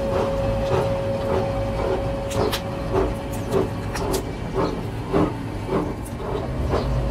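Open two-roll rubber mixing mill running, with a regular mechanical beat about twice a second as rubber compound is worked between its steel rolls, and a few sharp cracks in the middle.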